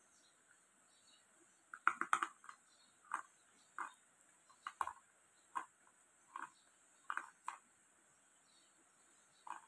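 A person chewing hard chalky lumps close to the microphone: a quick cluster of crisp crunches about two seconds in, then single crunches roughly every three quarters of a second, a pause, and a last pair near the end.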